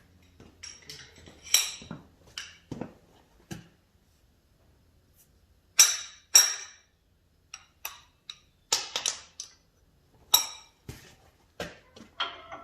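Steel tools and parts being handled in a workshop: scattered sharp metallic clinks and clanks, each with a brief ring. The loudest are a pair about six seconds in and another around ten seconds in.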